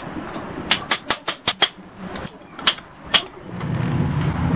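Quick hammer taps on a rust-seized cast-iron belt pulley of a donkey pump, knocking it loose from its shaft: a rapid run of sharp metallic strikes that stops after about a second and a half, then two single knocks. A steady low hum rises in near the end.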